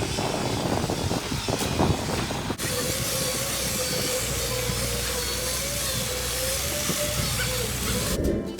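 Heavy machinery running with a steady low hum, hiss and a wavering whine, typical of a concrete truck on a pour. It breaks off abruptly about two and a half seconds in and picks up again. Music comes in near the end.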